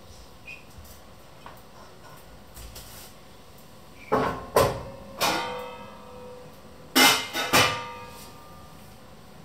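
Metal cookware knocked and set down, clanking with a short ringing note after each knock: a few clanks about four seconds in, and a second group of clanks about seven seconds in.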